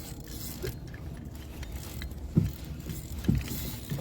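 A steady low rumble with two dull thumps a little under a second apart, about two and a half seconds in: handling knocks on a fishing kayak.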